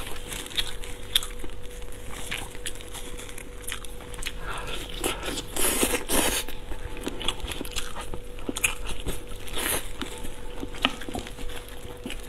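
Close-miked eating: biting and chewing glazed ribs, with wet mouth clicks and meat pulled off the bone, a denser stretch of tearing and chewing about halfway through. A faint steady hum runs underneath.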